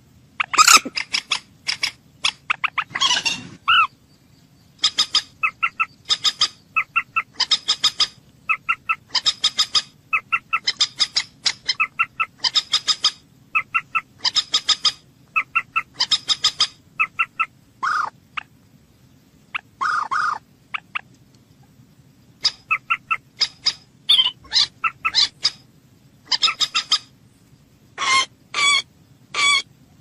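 Common moorhen calling: short, sharp, pitched notes repeated in quick runs, broken by brief pauses, with a few longer, drawn-out calls in the middle.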